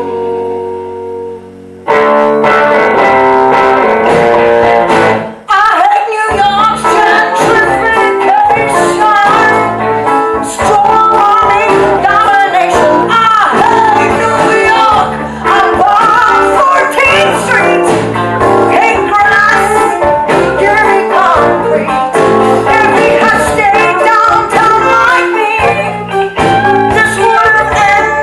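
Live band music with guitar and singing. A held chord fades for the first two seconds, then the full band comes in suddenly and plays on loud with a sung melody, with a brief dip a few seconds later.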